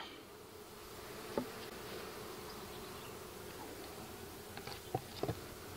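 A honeybee colony buzzing steadily over an open hive, with a few short light knocks as the wooden inner cover is handled: one early on and two close together near the end.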